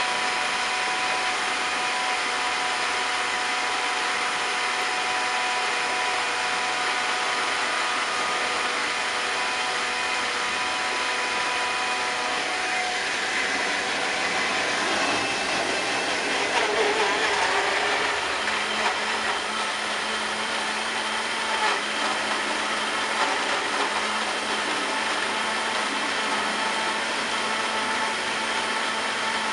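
Intermodal freight train rolling past: the steady rush of its wheels on the rails, with a high whine from the wheels through the first half that fades about halfway. The noise swells briefly a little past the middle.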